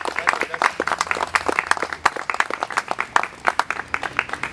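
A small audience applauding, the individual hand claps distinct and irregular.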